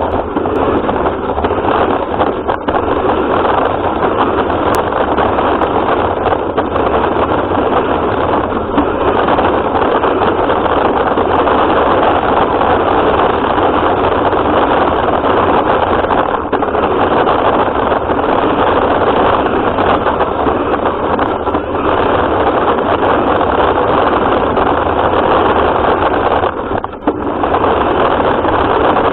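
Radio-controlled car running, a steady dense mechanical noise picked up by a camera riding on the car; it drops briefly near the end.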